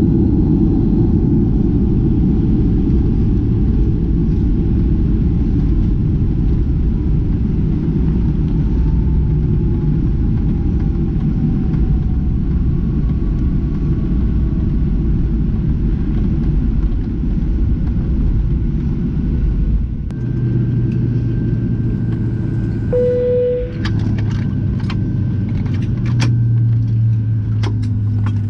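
Jet airliner cabin noise by the wing: a heavy rumble of the aircraft rolling on the ground, with an engine whine slowly falling in pitch as the engines wind down. About two-thirds of the way through, the rumble drops to a steadier low hum, followed by a brief tone and a run of sharp clicks near the end.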